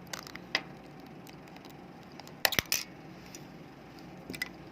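Small hard clicks and clatter of a plastic remote control being handled, with the loudest cluster of clicks about two and a half seconds in and a few lighter ones near the start and near the end.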